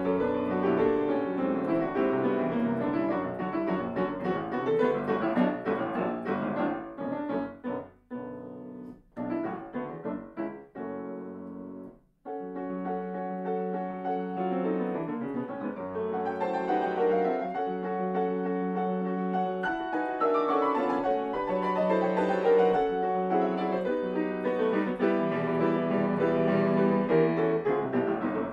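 Grand piano playing solo classical music: a dense passage thins to a few soft, detached notes and a brief pause about twelve seconds in, then full playing resumes over a sustained bass line.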